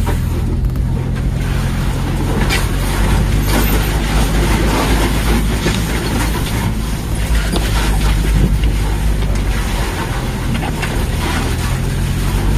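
Land Rover Freelander driving over rough ground: engine running steadily under tyre and body noise, with a few sharp knocks.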